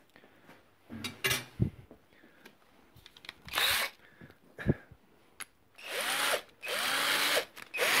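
Cordless drill run in several short bursts, its motor whine rising and falling in pitch with each pull of the trigger. A few light clicks of handling come before it.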